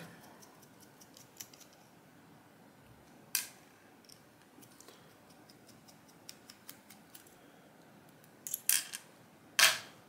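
Quiet small-tool work on a lock cylinder: a small screwdriver unscrewing the cylinder's back plate, with faint metal ticks. There is one sharp click about three seconds in and a few louder clicks near the end, as small metal parts are laid in a plastic parts tray.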